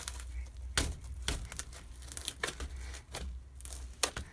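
Crunchy floam slime, clear-glue slime packed with foam beads, crackling and popping as fingers squeeze and poke into it, in a run of irregular snaps.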